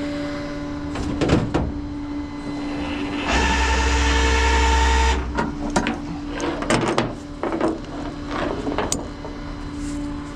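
Tow truck equipment working during a car drop-off: a steady hum under a loud mechanical whirr that runs for about two seconds in the middle, with scattered clicks and knocks.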